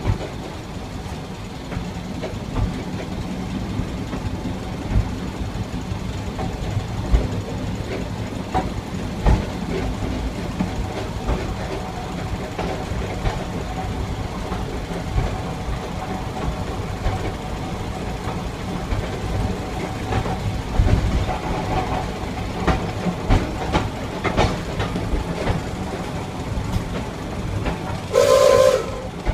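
Replica NZR Model T Ford railcar running along the line, heard from inside the cab: its engine runs steadily while the wheels click over rail joints and points. Near the end the horn sounds once, a short pitched blast about a second long.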